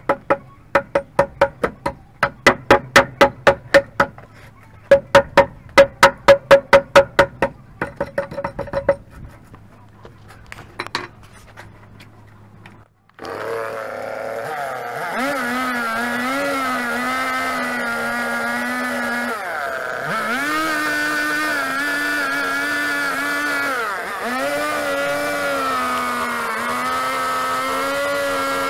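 Quick, light axe blows chipping into a wooden log, about five a second, each with a short ring, which stop about a third of the way through. About halfway through a two-stroke chainsaw starts running and cuts into the log, its pitch dipping as the chain bites into the wood and rising again.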